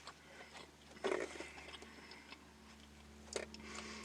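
A person chewing food close to the microphone: faint mouth and chewing sounds, with a short burst about a second in and a brief click near the end.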